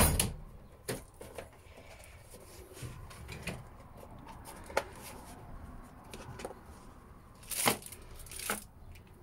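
Hand-handling knocks and clatters on a workbench as a hard plastic vernier caliper case is set down and opened, with the loudest two sharp clacks near the end, under a second apart.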